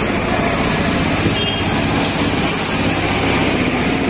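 Steady outdoor street noise with vehicle traffic, busy and continuous, with no single sound standing out.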